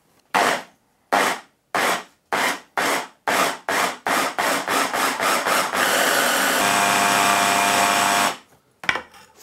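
Electric hand-blender chopper with two tiers of blades, blending chicken breast, onion, bread and egg into mince. About ten short pulses come closer and closer together, then the motor runs steadily with a whine for about three seconds and stops.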